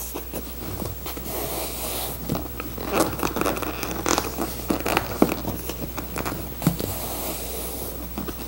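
Hands rubbing, pressing and sliding over a vinyl seat cover, making uneven scratchy scrapes with a few sharp clicks as the seams and piping cord are worked into place.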